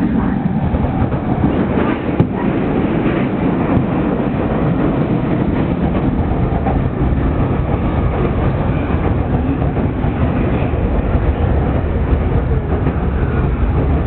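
Steady running noise of a moving train heard from inside the car: wheels rolling on the rails under a continuous low rumble.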